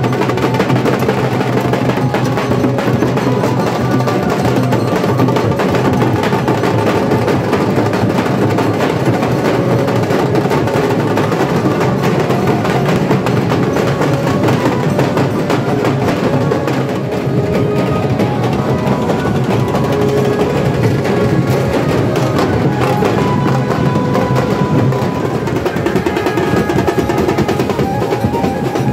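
Loud, continuous procession music driven by fast drumming with snare-like rolls and bass drum hits, with a melody line over it.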